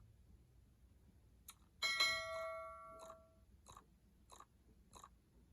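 Evenly spaced sharp ticks about every 0.6 s, typical of a diesel heater's fuel dosing pump running. About two seconds in, a single metallic ring with several clear tones sounds for about a second and a half.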